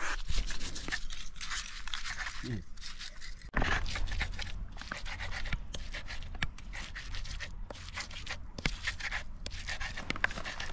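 Red chillies being ground into a wet paste with a hand-held stone on a flat boulder: repeated, irregular scraping and crushing strokes of stone on stone.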